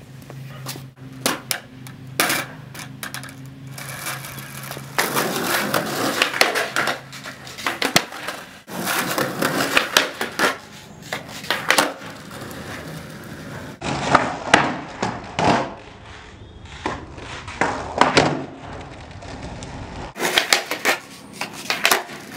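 Skateboard on smooth concrete: wheels rolling, broken by sharp clacks of the tail popping and the board and wheels slapping down, in several bursts of flatground trick attempts.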